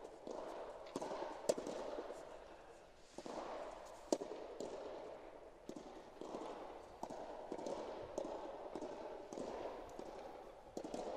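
Two sharp, echoing smacks of a soft tennis ball, about a second and a half in and about four seconds in, with a few fainter taps, among players' voices echoing under the court's roof.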